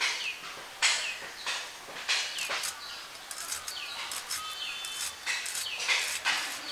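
Bitter gourd being sliced on a boti, the curved floor-mounted blade of Bangladeshi kitchens: a run of short, crisp cutting strokes, about one every half second to second, thinning out in the middle before picking up again near the end. Birds chirp faintly in the background.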